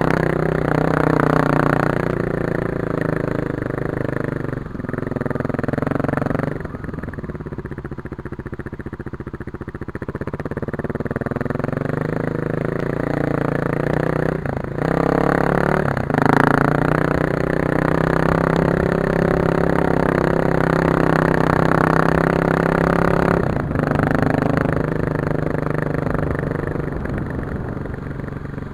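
Kawasaki KLX250S single-cylinder four-stroke dirt bike engine running under way, its note rising and falling with the throttle and dropping off briefly several times.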